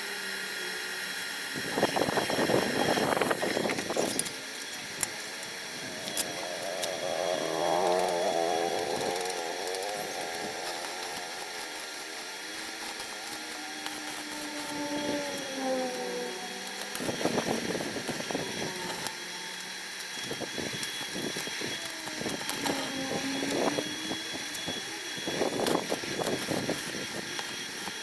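Washing-machine motor driving a homemade coconut grater, running with a steady whine. Rough rasping stretches come a couple of seconds in, again past the middle and near the end, as coconut is pressed against the spinning grater head.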